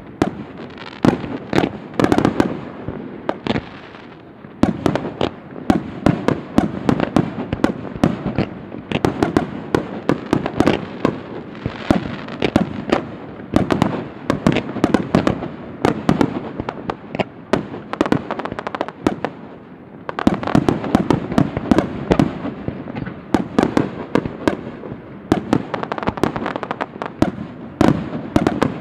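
Fireworks display: a dense, continuous barrage of sharp bangs and crackling from bursting aerial shells and low fan-shaped volleys, easing briefly around four seconds and twenty seconds in.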